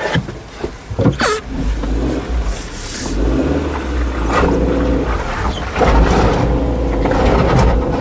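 Suzuki Jimny's engine running at low, steady revs, with several sharp knocks in the first two seconds and the engine sound getting louder about six seconds in.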